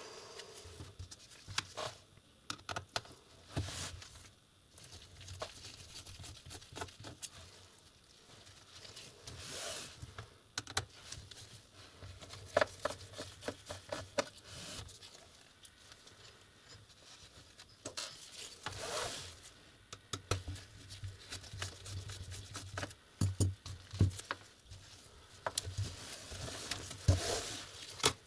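Small screwdriver and gloved hands working on a laptop's display assembly: scattered clicks and taps of the tool on metal and plastic, with a few brief rubbing and scraping sounds as the parts are handled.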